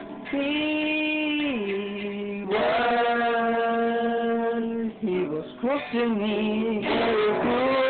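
A man singing long held notes without clear words, over music. The first note slides down in pitch, the next is held for about two and a half seconds, and shorter notes follow near the end.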